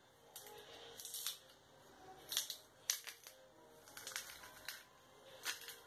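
Garlic press being squeezed over a saucepan, crushing garlic cloves: a series of short crunching, scraping clicks from the metal press, about one or two a second.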